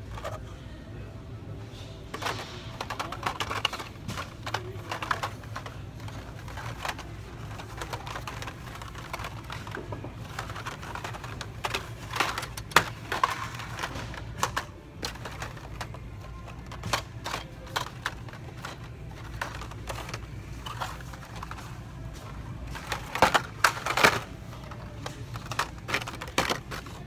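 Carded Hot Wheels die-cast cars in plastic blister packs clicking and clacking against each other and the metal store pegs as they are flipped through by hand. The clicks come in irregular runs, loudest about halfway through and near the end, over a low steady hum.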